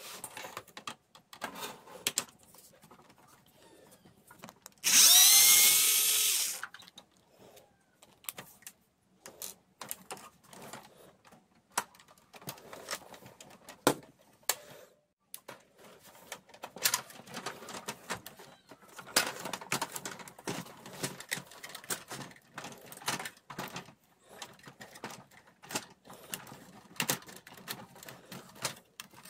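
A cordless electric screwdriver runs once for about a second and a half, some five seconds in. Around it come many short clicks and knocks of the printer's plastic housing parts being handled and prised apart.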